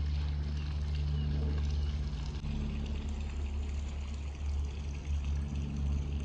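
Low, steady rumble of a moving vehicle, with a hum that fades in and out.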